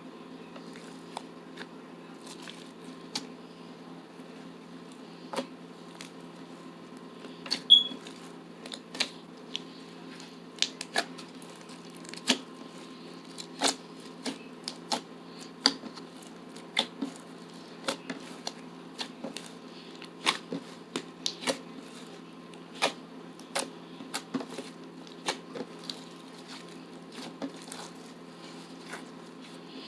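Slime being squeezed and pressed, with small air pockets popping in sharp, irregular clicks about once or twice a second.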